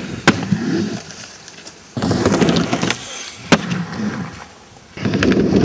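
Skateboard wheels rolling over wood in several short runs, with two sharp clacks of the board striking wood, one just after the start and one a little past halfway.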